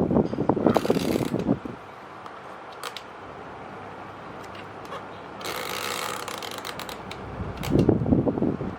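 Maspion EX-2109T box fan running steadily, with two loud spells of rapid mechanical clicking and rattling, one at the start and one near the end, and a short hiss in between.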